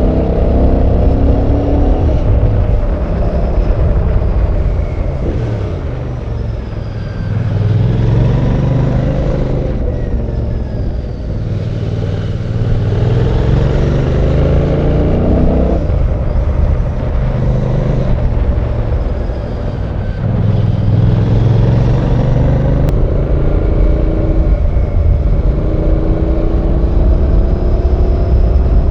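Royal Enfield Bear 650's 648cc parallel-twin engine under riding load. The revs climb and fall again and again through the ride, with a sudden drop about sixteen seconds in and softer, lower-revving stretches around six to eight and twenty seconds in.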